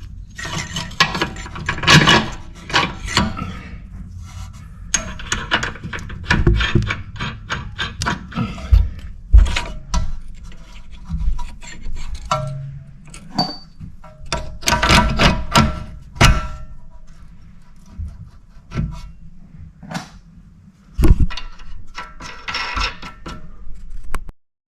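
Hand tools working on the rear suspension bolts: irregular clanks, knocks and rattling of wrenches and metal parts, over background music. The sound cuts off suddenly near the end.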